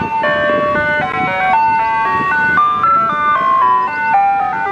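Ice cream truck's chime jingle playing a tinkly melody of quick, clear notes over its loudspeaker, with a low rumble from the truck underneath.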